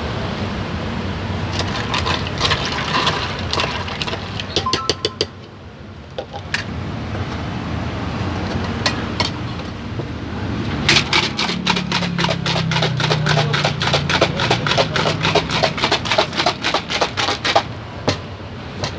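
Ice rattling inside a capped stainless steel shaker cup shaken by hand: a fast, regular clatter of about six knocks a second starting about eleven seconds in and lasting some six seconds. Before it come scattered clinks of ice against the metal cup.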